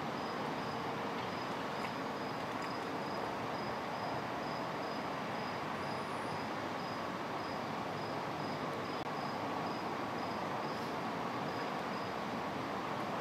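Steady outdoor ambience: an even, constant rushing noise, with a cricket chirping high and thin in a regular pulse about three times a second.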